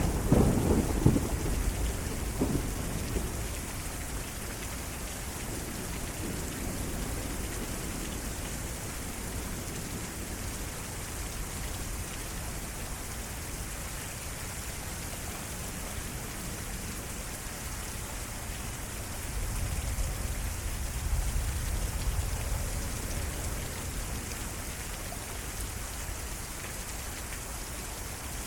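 Heavy thunderstorm rain falling steadily, with thunder. A loud rumble opens and fades over about three seconds, and a second, lower rumble swells about twenty seconds in.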